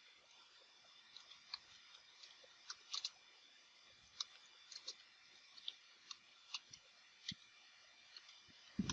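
Faint, irregular computer-keyboard keystroke clicks, one or two a second, with a soft low thump near the end.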